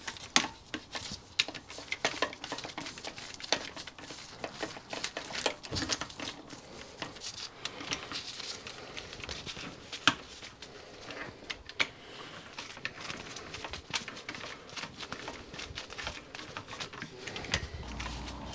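Irregular light metallic clicks and taps of steel nuts and a socket tool being worked onto the studs of a Stuart P10b steam engine's cylinder cover.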